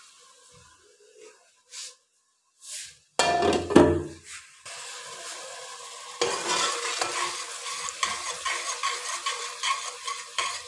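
Onion-tomato masala sizzling in an aluminium pot while a spoon stirs and scrapes it, from about six seconds in. Before that, about three seconds in, a brief loud clatter as dishes are moved aside.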